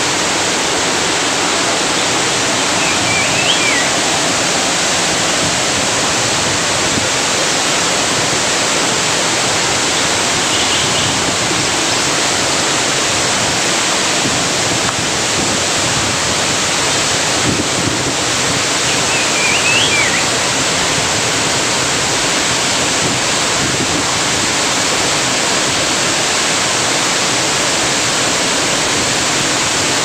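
A single-drop waterfall in heavy rainy-season flow, pouring over a large boulder into a plunge pool with a steady, even rush of water. Two brief high chirps rise above it, about three seconds in and again about twenty seconds in.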